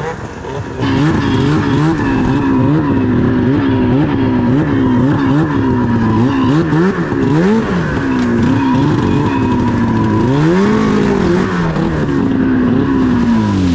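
Snowmobile engine running hard under constantly varied throttle, its pitch rising and falling again and again. It climbs about ten seconds in, then drops away near the end.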